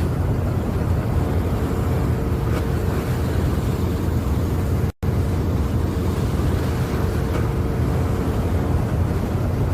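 Steady low rumble and rush of a ship underway at sea, with a faint steady hum running through most of it. The sound cuts out for a split second about five seconds in.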